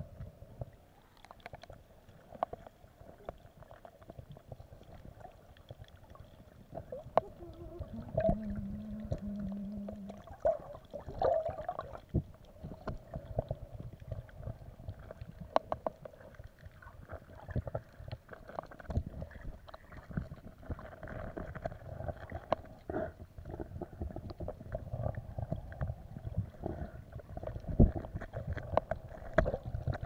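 Muffled underwater sound picked up by a submerged camera: low rumbling water movement with many scattered clicks and knocks, with no speech.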